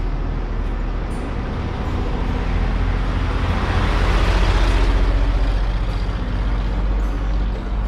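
1949 Chevrolet 3800 truck's 235 cubic-inch inline-six driving past. The engine rumble builds as the truck approaches, is loudest as it passes about four to five seconds in, then fades as it drives away.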